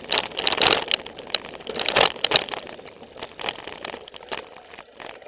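Mountain bike rolling fast downhill over rough trail, the bike and camera mount rattling and clattering with sharp knocks over bumps, quieting near the end.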